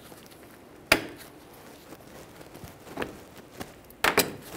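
Sharp metallic clicks of hose clamp pliers working a spring hose clamp on a rubber radiator hose: one about a second in, a fainter one around three seconds, and a quick double click near the end.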